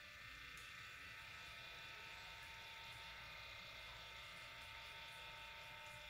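Faint, steady electric hum of a small cup-turner motor rotating a tumbler, with a few light ticks.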